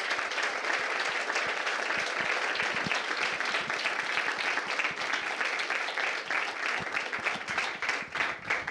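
Audience applauding: dense clapping from many hands, held steady throughout.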